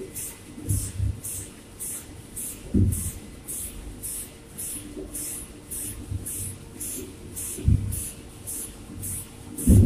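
Machinery running in a factory shed: an even rhythm of hissing puffs, about two a second, over a low hum, with a few dull thumps, the loudest at the very end.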